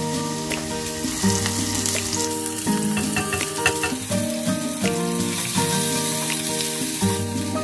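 Sliced onion and minced garlic sizzling in hot oil in a small nonstick saucepan, stirred with a wooden spoon near the end. Background music with a melody plays throughout.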